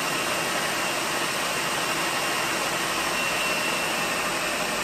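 A Ninja blender's motor running steadily on low, its blade mixing a thick almond-flour dough, with a faint high whine over the motor noise.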